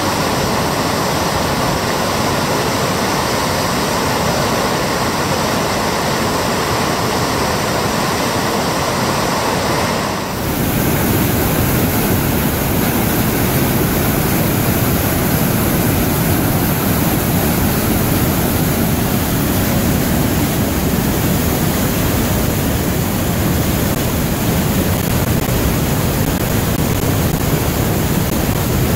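Kicking Horse River whitewater rushing over rapids and through a narrow rock gorge: a loud, steady roar of water. About ten seconds in it shifts to a fuller, deeper roar.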